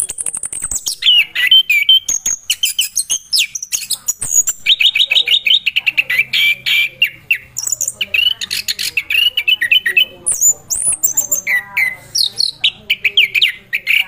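Chestnut-capped thrush singing a long, fast, varied song of high trills and quick whistled phrases, with only brief pauses.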